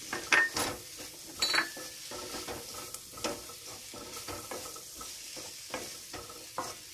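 Spatula stirring and scraping chopped capsicum through a sizzling onion-tomato masala in a metal kadai, a steady frying hiss under repeated scrapes on the pan. The two sharpest scrapes come within the first two seconds, then lighter strokes follow.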